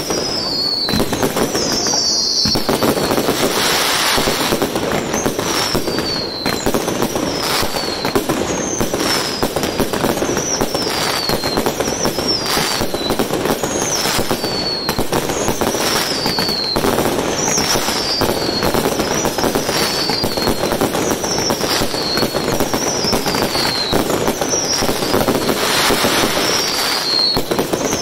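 Aerial fireworks bursting in a dense, continuous barrage of crackling and popping, with a short falling whistle about once a second.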